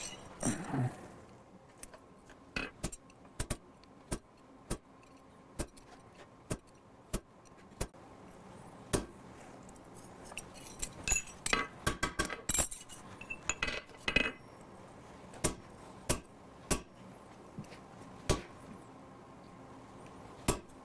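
Hammer tapping a hand-made coil-spring-steel cold chisel, cutting leaf-vein lines into a cold steel handle on the anvil: sharp metallic clinks, irregular, about one or two a second with a quicker run of strikes in the middle.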